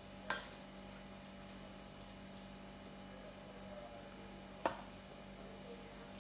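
Two sharp clinks about four seconds apart, a metal spoon knocking against a small ceramic sauce dish, each with a brief ring, over a steady low hum.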